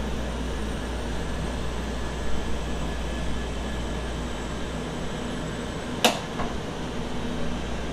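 Cabin noise of an N700-series Mizuho shinkansen running: a steady low rumble with hiss, and one sharp click about six seconds in.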